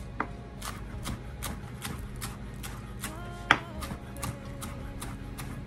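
Chef's knife slicing a green onion on a wooden cutting board: a steady run of knife taps on the board, about two or three a second, with one louder knock about halfway through.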